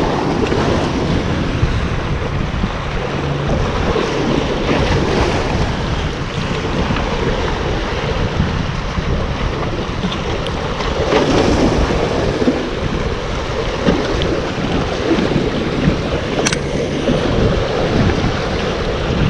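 Sea waves surging and washing against breakwater boulders, with wind buffeting the microphone. A single sharp click near the end.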